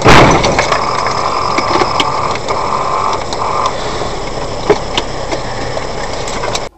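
A car collision heard from inside the car: a sudden loud impact right at the start, then steady engine and road noise with a high steady tone that comes and goes for a few seconds. It cuts off abruptly near the end.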